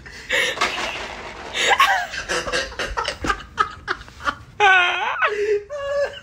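A person laughing hard in repeated, uneven bursts, with a higher, squealing stretch of laughter about two-thirds of the way through.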